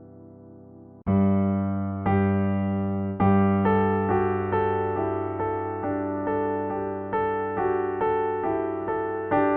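Pianoteq 9 physically modelled software piano playing. A faint fading chord gives way about a second in to a loud struck chord and two more chords a second apart, then a steady run of notes roughly twice a second over sustained bass notes, each note decaying after it is struck.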